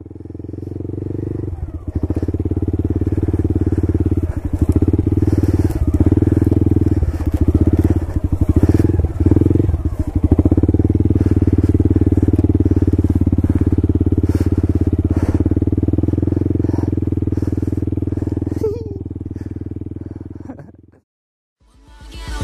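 Stomp 125 pit bike's single-cylinder four-stroke engine running while ridden, its sound dipping briefly several times in the first half as the throttle is eased and reopened, then fading away near the end.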